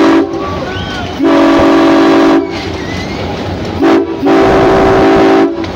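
Locomotive air horn on GE 80-ton switcher #113 sounding the grade-crossing signal: the end of one long blast, then another long blast, a short one and a final long one, each a steady multi-note chord. The train's running rumble carries on between the blasts.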